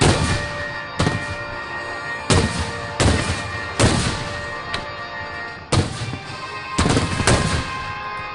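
Aerial firework shells bursting: about eight loud bangs at uneven intervals, each trailing off as it fades, with music playing underneath.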